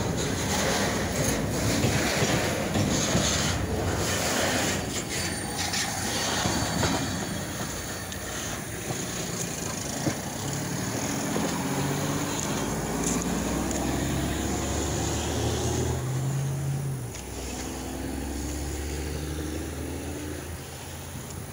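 Freight train rolling past: railcar wheels clattering over rail joints with occasional wheel squeal. From about halfway through, a lower diesel engine rumble comes up under the train noise.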